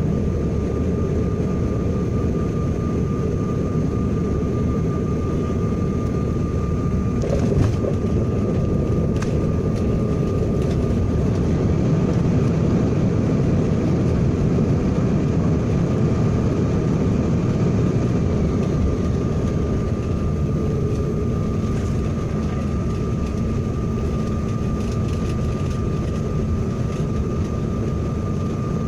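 Steady cabin noise inside a Bombardier CRJ1000 regional jet: a constant low rumble of airflow and engines with a thin steady whine on top. A single brief knock about seven seconds in.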